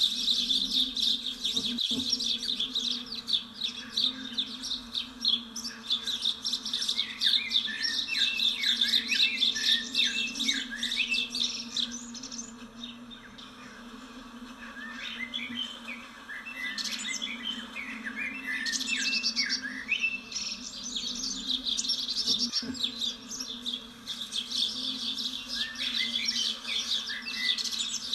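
Small birds chirping and twittering busily, over a steady low buzz. The chirping thins out briefly around the middle, then picks up again.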